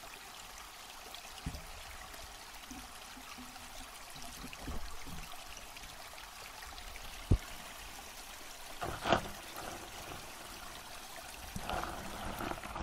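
Steady underwater hiss heard through a submerged camera resting on a gravel and shell bottom, with a sharp knock about seven seconds in, a second knock about two seconds later, and some scraping near the end.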